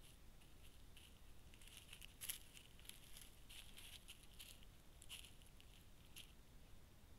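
Dry leaves rustling and crackling as mountain lion kittens move and play on them, in irregular bursts, the sharpest crackle a little after two seconds, dying away about a second before the end.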